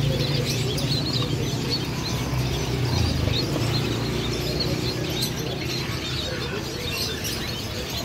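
A crowded cage of trapped scaly-breasted munias chirping: many short, high calls overlapping without a break. A low steady hum runs underneath and drops away about three seconds in.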